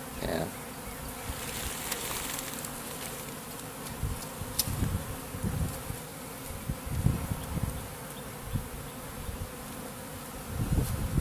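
A honeybee swarm humming steadily, a peaceful hum rather than the high-pitched sound of angry bees: the swarm is calm. From about four seconds in, irregular low thuds come and go over the hum.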